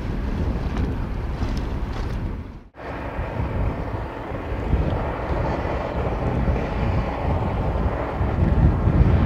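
Steady low rumble of the ferry Porfyrousa under way, with wind buffeting the microphone. The sound drops out briefly about two and a half seconds in, then comes back slightly louder.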